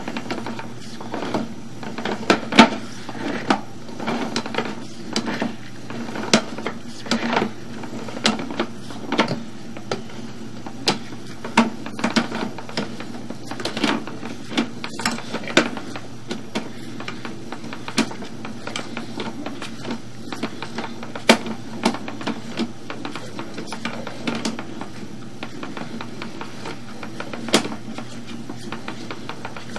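Sewer inspection camera's push cable being pulled back out of the line and onto its reel: irregular clicks and knocks, about one or two a second, over a steady low hum.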